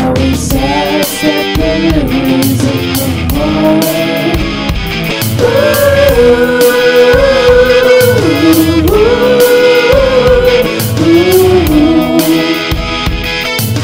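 Rock band music: drums keeping a steady beat under guitar, with a melody of long held notes that waver and step in pitch.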